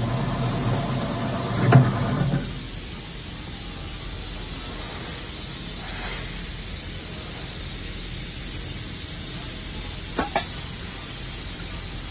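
Electric motor of a tabletop can-seaming machine running with a steady hum, a sharp click just before it stops about two and a half seconds in. After that a steady low hiss, and two quick clicks near the end.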